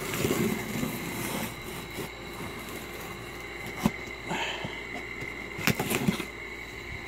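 A cardboard shipping box being slit along its taped seams with a knife and shifted around on a bed: scraping and rustling of cardboard with two sharp knocks, about four and six seconds in. Under it runs the steady hum of a room air conditioner.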